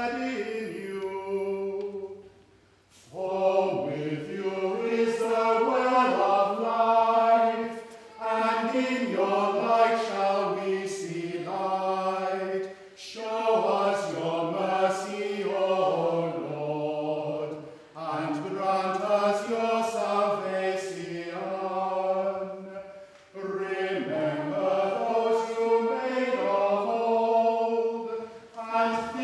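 A small group of men singing a chant in unison in a stone church. It comes in phrases of about five seconds, each separated by a short pause for breath.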